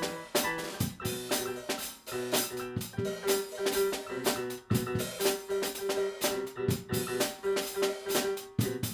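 Instrumental music with a steady drum beat and a repeated pitched note over it.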